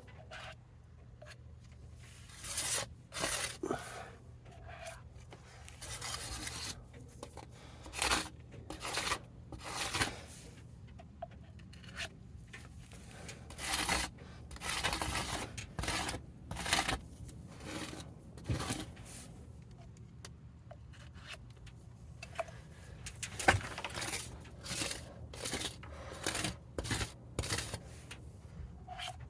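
Repeated short, irregular scraping strokes on a metal PC case panel, clearing the acid-etching residue off the surface.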